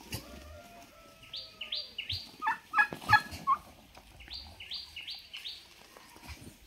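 Turkey calling, a quick run of loud pitched notes about halfway through, with runs of about four quick, high, falling chirps twice around it.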